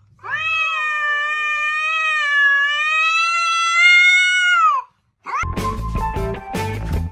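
A cat yowling at another cat: one long drawn-out call of about four and a half seconds, its pitch wavering and then dropping away at the end. Rock music with guitar and drums starts about five seconds in.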